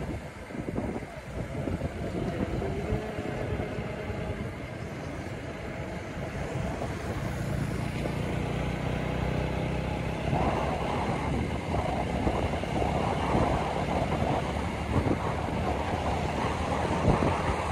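Motorcycle riding along a road: the engine runs steadily under a continuous rush of wind over the microphone. About halfway through the engine note becomes clearer and the wind grows louder and gustier.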